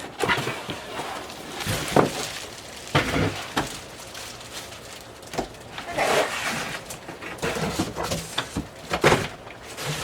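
Packaging being handled as a box is unpacked: rustling and scraping of box materials with several sharp knocks and thumps, the loudest about 2, 3 and 9 seconds in.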